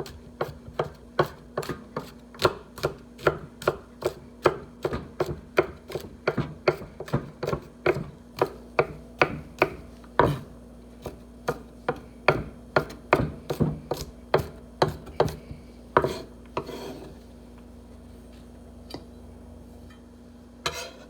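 Kitchen knife chopping fresh garlic on a cutting board, with quick even strokes about three a second. The chopping stops about fifteen seconds in, followed by a couple of single knocks.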